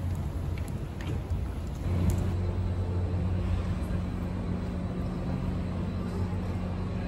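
Outdoor street ambience with traffic. About two seconds in it changes to a steady low hum inside the station hall.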